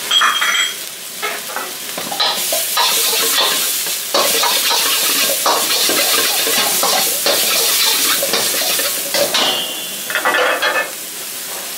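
Steel wok ladle scraping and knocking around a steel wok as chopped scallions, garlic and ginger sizzle in hot oil over a gas burner. There is a ringing metallic clink right at the start and a few more near the end.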